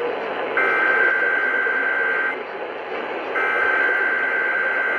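Emergency Alert System SAME header data bursts: raspy two-tone digital data signals, the first starting about half a second in and lasting under two seconds, the second starting about a second after it ends. Both come over a steady radio hiss.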